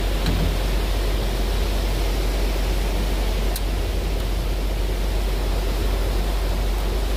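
Wind blowing across the microphone as a steady low rumble over the continuous noise of surf breaking on the beach. Two faint ticks, one just after the start and one about halfway through.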